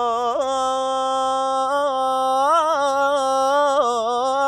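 A male munshid sings a solo mawwal in the Iraqi al-Awshar mode. He holds one long note, with wavering melismatic turns about two and a half seconds in and again near four seconds.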